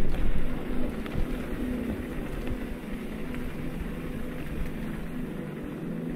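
Loaded bikepacking bike rolling fast over cobblestones: a continuous rattling rumble of tyres on stone and the bike shaking, with sharper jolts from individual bumps.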